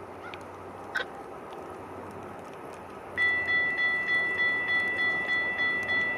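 Railway level-crossing warning bell starts ringing about three seconds in, a steady metallic ding at about three strokes a second. It is the crossing signal activating for an approaching train.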